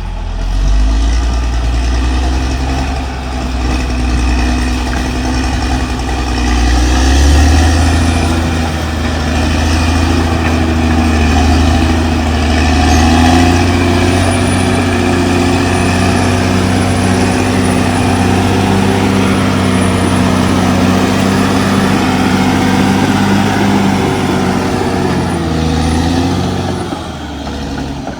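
Caterpillar D6R XL bulldozer's diesel engine working steadily under load, its note wavering a little and easing off near the end.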